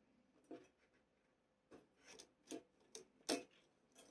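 Light handling sounds of thin wires being pulled through a black plastic model frame: soft rubbing and a handful of small plastic clicks and taps, the sharpest a little past three seconds in.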